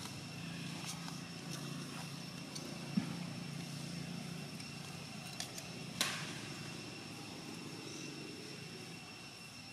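Outdoor background with a low, steady engine hum from distant traffic and a steady high-pitched whine, broken by sharp clicks about three and six seconds in.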